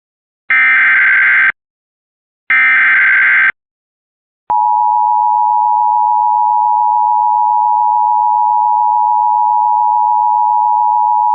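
Emergency Alert System SAME header: two short, harsh, buzzing digital data bursts, about a second each with a second's gap between them. About four and a half seconds in, the EAS two-tone attention signal (853 and 960 Hz) begins and holds steady and loud.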